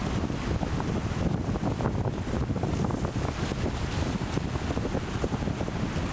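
Strong wind buffeting the microphone in a continuous rough, fluttering rumble, with the hiss of Atlantic surf underneath.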